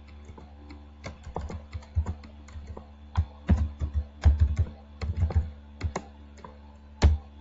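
Computer keyboard typing: irregular runs of key clicks as a line of code is entered, over a steady low electrical hum.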